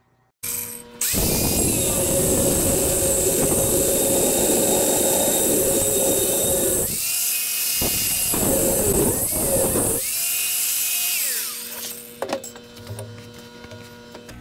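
Angle grinder with a cutoff wheel cutting through steel rectangular tubing: a loud, steady, high-pitched cutting noise. About seven seconds in the cutting noise drops away for a few seconds while the motor whine rises and falls, then the cut resumes. About twelve seconds in the motor winds down with a falling whine.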